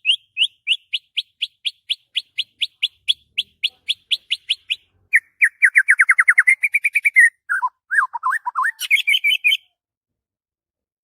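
White-rumped shama (murai batu) singing. A long run of short, rising whistled notes comes about four a second, then a fast trill, then lower warbling notes and a higher twittering phrase. The song breaks off about two-thirds of the way through.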